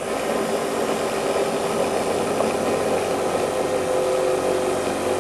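A motor or engine running steadily, growing slightly louder over the first second.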